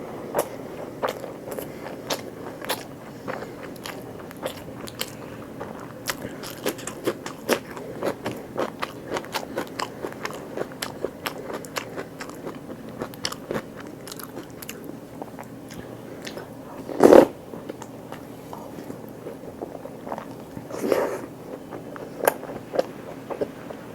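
Close-miked biting and chewing of crunchy food, with many sharp, wet mouth clicks. A louder, longer mouth sound comes about two thirds of the way through, and a smaller one a few seconds later.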